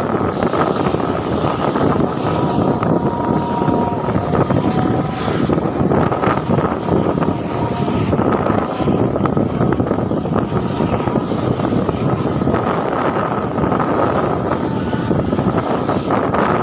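Steady, loud road noise from riding along a busy street: vehicle engines and tyre rumble mixed with wind on the microphone.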